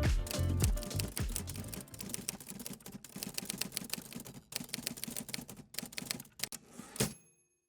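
Rapid, irregular clicking like typing, growing fainter and stopping suddenly about seven seconds in. Under the first second is the tail of background music.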